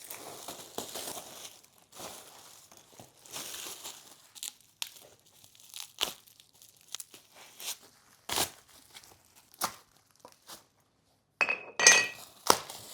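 Plastic packaging crinkling and tearing as parts are unwrapped, with scattered knocks of items being handled. Near the end a louder burst of handling with a short metallic clink that rings briefly.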